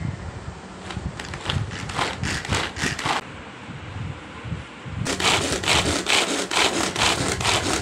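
Manual pull-cord vegetable chopper being worked in quick repeated strokes, its blades chopping onion: one run of strokes from about a second in, then a louder run from about five seconds in, some three to four strokes a second.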